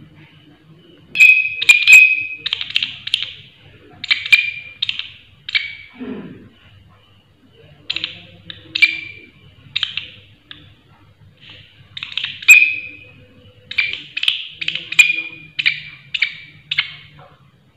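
Large green katydid (walang kerik, a leaf-winged bush cricket) calling: loud, shrill, rasping chirps, several a second, in irregular clusters separated by short pauses.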